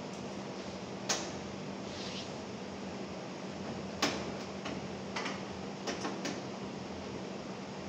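A few short, sharp clicks and knocks of hand work on the car's inner fender well. They fall about a second in, then several between about four and six seconds in, over a steady background hum.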